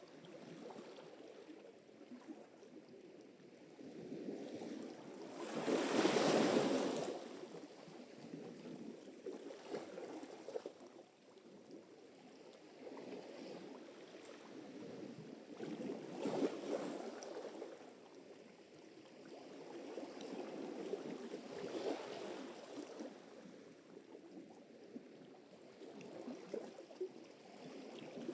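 Sea surf: waves breaking and washing in, swelling and fading every few seconds. The strongest wave comes about six seconds in.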